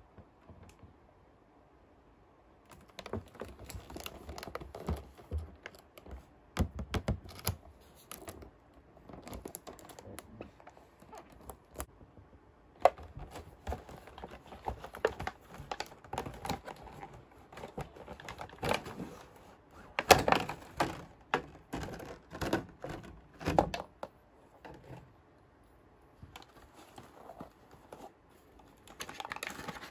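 Handling sounds of a toy bunk bed and its packaging being unboxed: a busy run of small taps, clicks and knocks with some rustling. The loudest knocks come about two-thirds of the way through, and the handling pauses for a few seconds near the end before picking up again.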